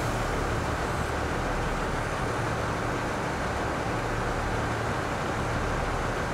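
KiHa 85 series diesel railcar standing at the platform with its diesel engines idling, a steady low hum under an even rumble.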